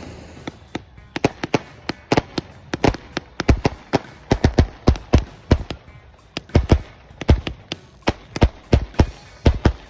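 Fireworks going off in a fast, irregular string of sharp bangs, about three a second.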